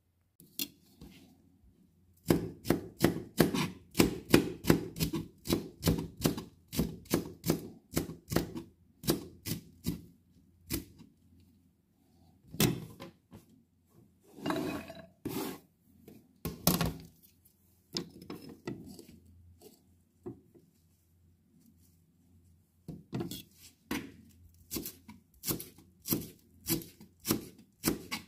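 Kitchen knife chopping vegetables on a plastic cutting board in steady strokes of about three a second. Midway the chopping stops for a few longer scrapes as diced celery is pushed off the board, then the chopping starts again.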